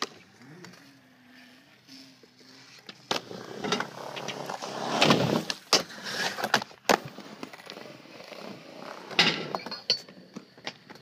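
Skateboard wheels rolling on concrete, then the board scraping along a low ledge in a slide, with sharp clacks of the board hitting and landing about seven and nine seconds in.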